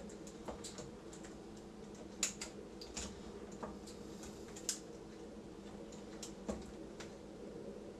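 Irregular light clicks and taps of plastic being handled as a washer control board is fitted back into its housing, with two sharper clicks about two seconds and nearly five seconds in. A steady low hum runs underneath.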